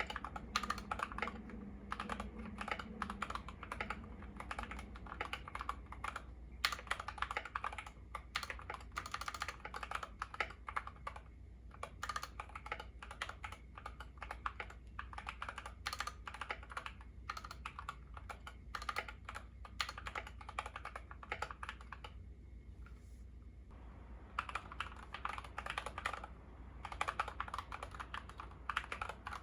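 Continuous fast typing on a YUNZII KC68 mechanical keyboard with lubed Gateron Yellow linear switches and XDA-profile keycaps, a dense run of key clacks. The typing pauses briefly about three-quarters of the way through, then carries on.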